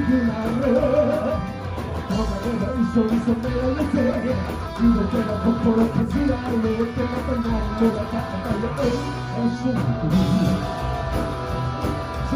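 Rock band music with guitar to the fore: a wavering melody line over bass and drums.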